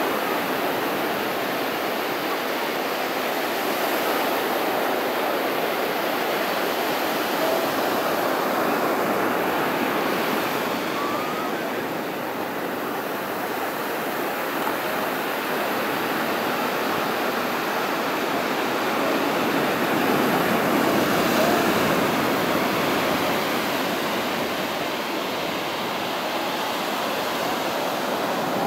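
Surf breaking and washing up a sandy beach: a steady hiss of waves and foam that swells and eases slowly, loudest about two-thirds of the way through.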